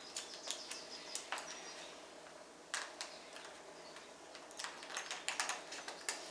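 Light clicks and taps of a portable air conditioner's plastic window slider panel being handled and adjusted, scattered at first, with a quicker run of clicks in the second half.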